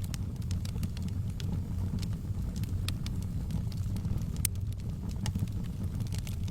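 Wood fire burning in a fireplace: a steady low rumble of the flames with irregular crackles and pops, one sharper pop about four and a half seconds in.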